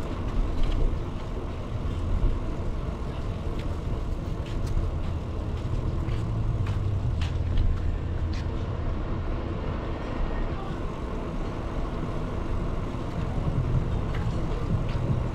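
Steady low rumble of a bicycle in motion, with a few faint clicks.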